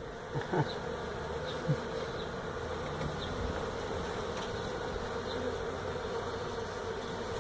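Swarm of Africanized honey bees buzzing steadily around their opened hive, a constant droning hum.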